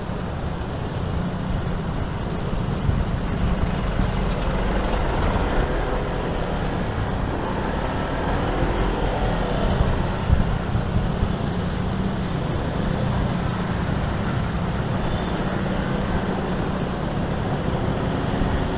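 Steady road noise heard from a scooter riding in slow city traffic: the rumble of its own engine and of the cars and motorbikes around it.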